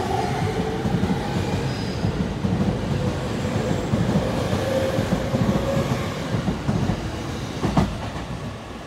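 JR E231-500 series electric commuter train pulling out and gathering speed close by: a dense rumble of wheels knocking over rail joints, with a faint motor whine rising slowly in pitch. A single sharp clank near the end is the loudest sound.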